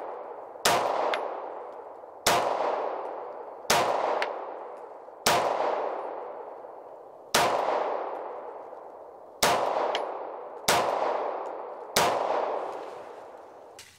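Eight shots from an FN FNS9 9 mm pistol, slow aimed fire about one every one and a half to two seconds. Each shot is followed by a long, fading ring.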